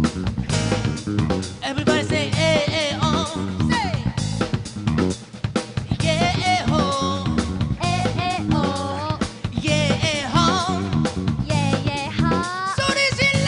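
A live band playing an upbeat song: a lead vocal sings over a full band with a drum kit keeping a steady beat.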